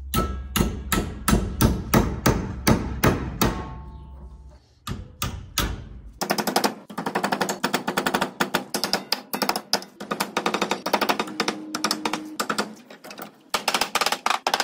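Hammer striking a metal rod clamped in a bench vise, bending a curl into the rod's end. It gives steady blows about three a second, then a short pause, then a fast run of taps at several a second.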